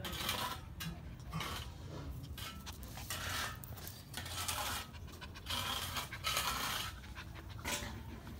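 Miniature pinscher panting: short, hissy breaths coming in an irregular string.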